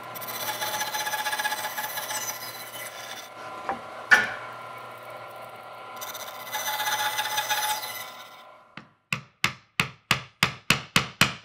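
Bandsaw running and cutting into a mahogany board to clear the waste between dovetail tails: two louder cutting passes, with a sharp knock about four seconds in. Near the end come about ten quick, sharp strikes that grow louder, a mallet driving a chisel to chop along the dovetail baseline.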